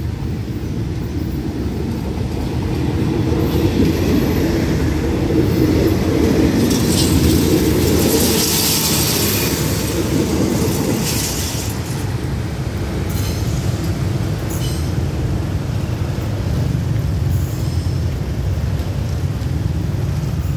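Diesel special express passenger train of the State Railway of Thailand passing close by at a level crossing: a low rumble from the carriages with wheels clattering on the rails, loudest from about four to eleven seconds in, then settling to a lower rumble as it moves away.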